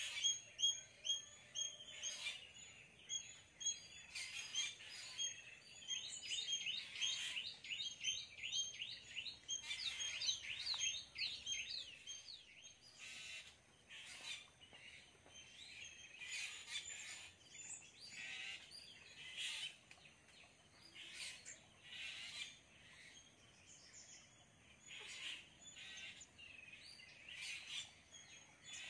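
Many birds chirping and calling together in a morning chorus. A dense chatter of quick high notes fills roughly the first dozen seconds, then the calls thin out to scattered chirps.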